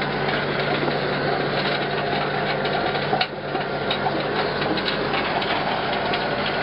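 Carrot harvester running: a steady engine hum under the continuous clatter of its rattling wire-grate conveyor carrying the carrots. The noise drops briefly about halfway through.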